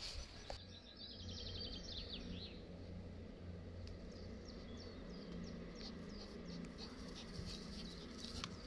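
Faint birdsong: a quick trill of repeated high notes about a second in, then scattered short chirps, over a low steady rumble.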